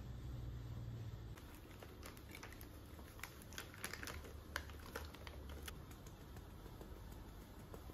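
Light, irregular ticks and taps of milk powder being shaken from its packet through a stainless steel mesh sieve, the sieve tapped and jostled to sift the powder onto a plate. They start about a second and a half in and are thickest in the middle.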